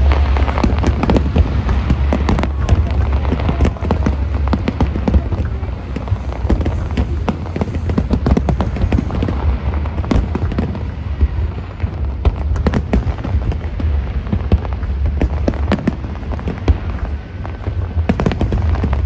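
Fireworks display: a continuous run of aerial shell bursts, bangs and crackles, some close together, with music playing along underneath.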